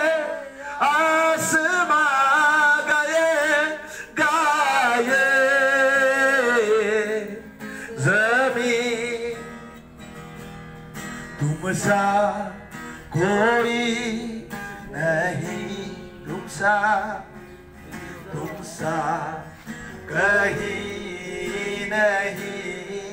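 A Hindi Christian worship song: a man's voice singing long, wavering notes, with acoustic guitar strummed underneath that comes forward with shorter sung phrases after about seven seconds.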